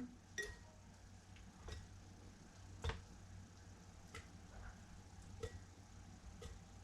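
Faint, sparse knocks and clicks, about one a second, as cucumber pieces are set down into a jar.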